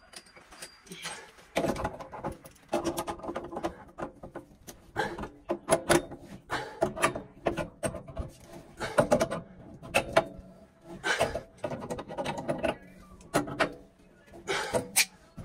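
A hand tool worked on copper pipework in repeated strokes, metal scraping and creaking in uneven bursts about once a second.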